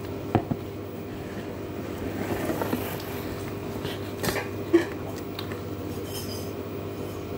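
Spoon or fork clinking against a plate a few times during eating, the sharpest clink a little under five seconds in, over a steady background hum.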